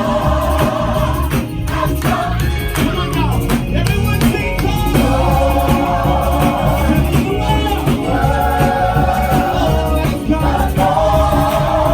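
Gospel choir singing with a live band, long held chords in several voice parts over bass and drums.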